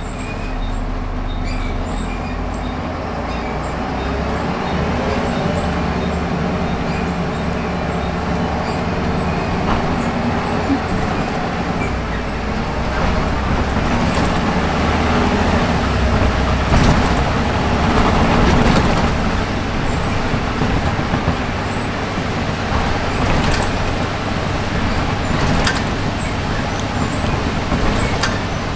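Volvo B7RLE bus heard from inside the passenger saloon while on the move: the diesel engine and automatic gearbox pulling through changing revs, with road noise and scattered interior rattles and clicks.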